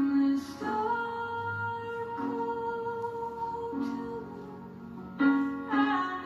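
Slow, gentle song with a woman singing long held notes over soft instrumental accompaniment.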